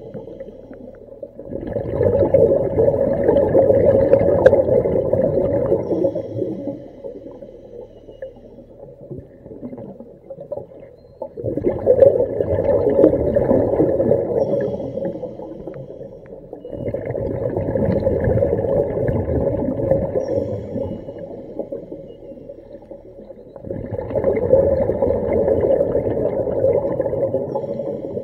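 A diver breathing through the regulator of a surface-supplied hookah air rig, heard underwater: four long rushes of exhaled bubbles a few seconds apart, with quieter inhalations between them.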